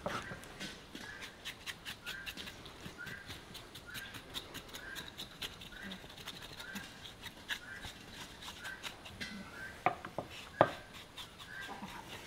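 Knife blade scraping scalded hair off pig skin in short, quick strokes, with two sharper knocks near the end. Behind it a short high chirp repeats a little faster than once a second.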